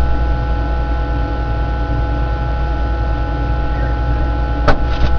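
A steady electrical hum over a low rumble, holding several fixed tones, with a single sharp click near the end.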